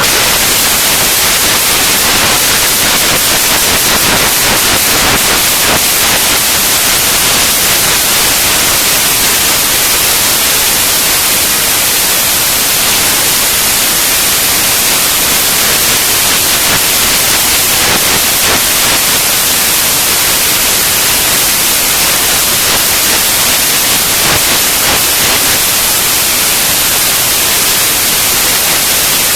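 Loud, steady rushing hiss of wind and riding noise on a camera carried on a moving motorcycle.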